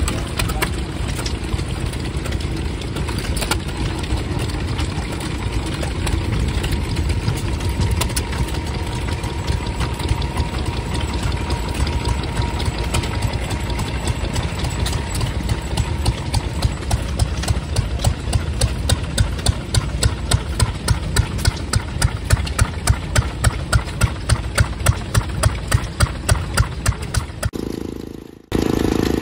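Small vintage stationary engines running, heard one after another. Over the second half there is an even beat of exhaust pulses, about two to three a second. Just before the end the sound breaks off briefly and a different engine comes in, driving a pump that pours water into a tub.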